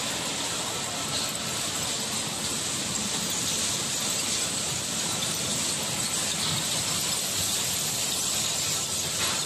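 Steady machinery noise of a scrap-aluminium X-ray sorting line running, dominated by a continuous high-pitched hiss.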